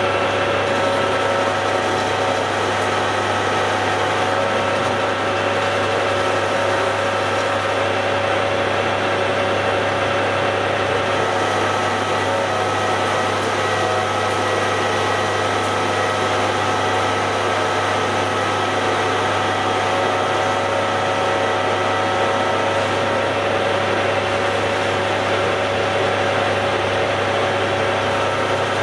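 Hare and Forbes AL335 metal lathe running steadily while taking a light tidy-up cut: a constant motor hum with several steady tones above it.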